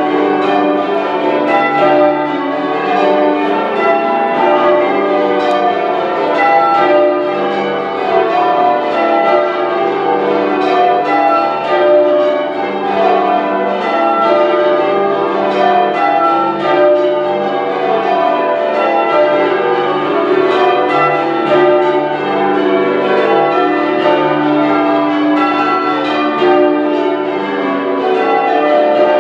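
A ring of ten church bells being change rung: a steady, unbroken stream of overlapping bell strikes in rounds-and-changes rhythm.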